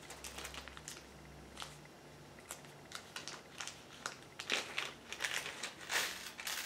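Small clear plastic bag of nails crinkling as it is handled and nails are taken out, in short scattered rustles and clicks that grow louder and busier in the last couple of seconds.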